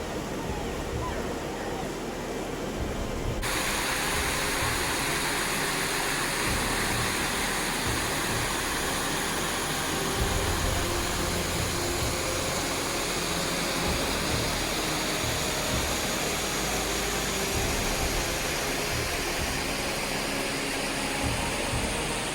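Steady rush of falling water from a waterfall, which cuts in suddenly about three seconds in and runs full and even from then on.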